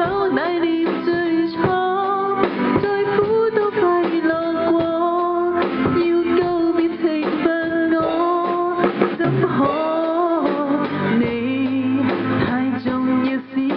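A live band jamming on guitars and keyboard. A lead melody line holds notes and slides between them over the accompaniment.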